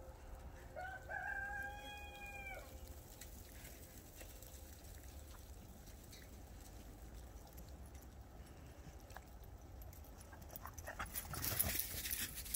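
A rooster crows once, faintly, about a second in: a single held call of about a second and a half. Near the end, footsteps crunch through snow.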